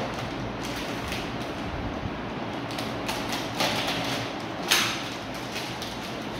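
A wrapped packet being handled and slit open with a box cutter: rustling and crinkling of the wrapping, with a sharp crackle about three-quarters of the way in.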